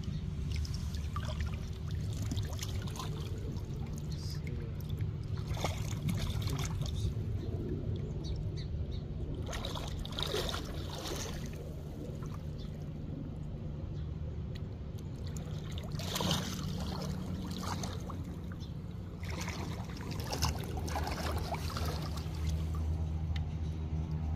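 River water trickling and splashing over a steady low rumble, with brief louder splashes every few seconds.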